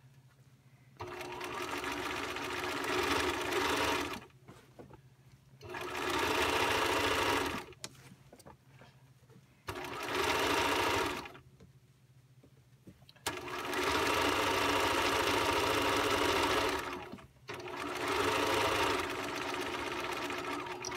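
Bernina 1010 home sewing machine stitching a straight seam through layered bag fabric. It runs in about five stop-start runs of one to four seconds each, stopping between runs while the seams are lined up.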